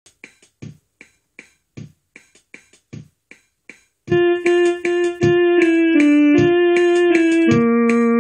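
Instrumental song intro: a sparse drum-machine beat plays alone, then an electric-piano-like keyboard comes in about four seconds in, much louder, playing a melody of held notes over the beat.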